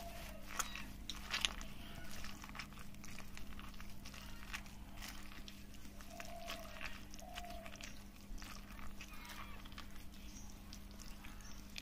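Irregular crunching and clicking, with two short animal calls about six and seven seconds in.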